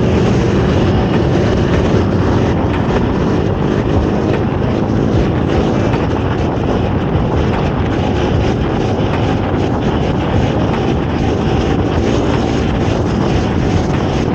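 Steady wind rush on the microphone mixed with street traffic noise, heard from a camera riding along on a moving bicycle.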